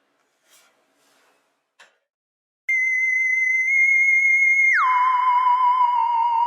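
A few faint small knocks, then a loud, pure electronic tone starts suddenly almost three seconds in, holds at a high pitch, and about five seconds in slides down about an octave and carries on with a steady waver.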